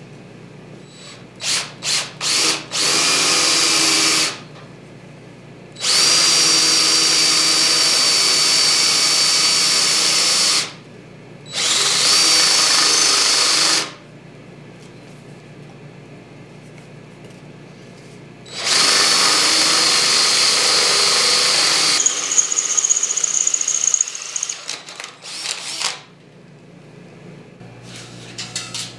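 Cordless drill boring a half-inch hole through rusty steel plate: a few quick trigger pulls, then several runs of a steady whine lasting a few seconds each with short pauses between. Near the end the drilling turns rougher and uneven before it stops.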